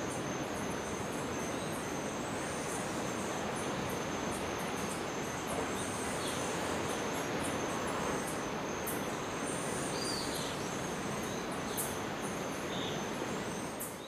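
Steady forest ambience: an even rushing noise under a constant high insect drone, with scattered high chirps and clicks and a few short bird calls in the second half.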